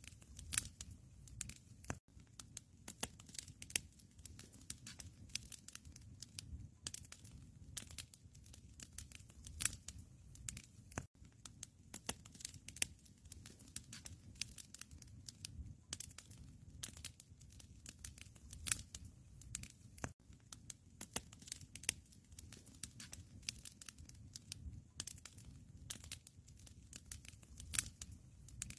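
Wood fire crackling in a fireplace: many irregular sharp pops and snaps over a low steady rumble.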